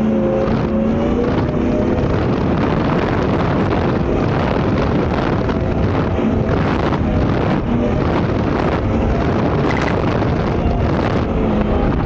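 Twin 700 hp engines of a 39-foot Cigarette Top Gun Unlimited powerboat running hard at speed through big waves, the engine pitch wavering up and down. Heavy wind noise on the microphone.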